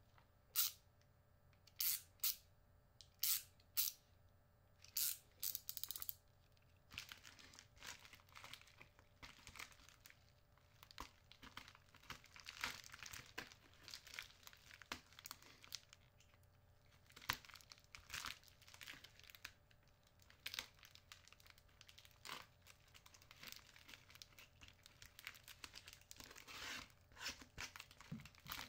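A silver bubble-lined foil packing bag being torn open and handled: a run of short, sharp tearing strokes in the first few seconds, then irregular crinkling and rustling of the foil and bubble wrap.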